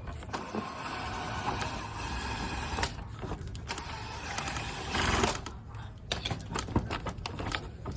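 Cordless drill driving a long screw through a pet door frame in two runs, the second ending in its loudest burst, followed by scattered clicks of the screw and frame being handled.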